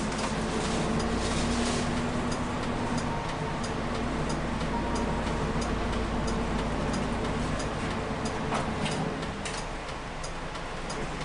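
Bus engine running, heard from inside the passenger cabin, with the turn-signal relay ticking evenly about twice a second from about two seconds in.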